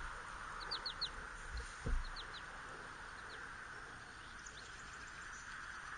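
Small bird chirping: short, high, falling chirps in quick runs of three or four, several times, over a steady background hiss. A dull thump about two seconds in.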